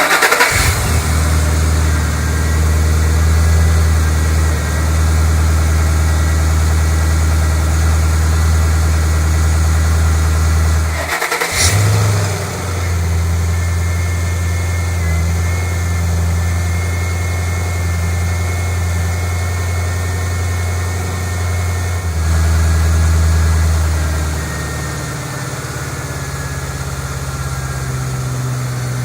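Ford Mustang GT's 4.6-litre three-valve V8 cold-starting and then idling steadily with a deep exhaust note, running on 6,000-mile-old conventional oil. The sound breaks off briefly about eleven seconds in and picks up again, and the idle rises for a few seconds past the twenty-second mark before settling back down.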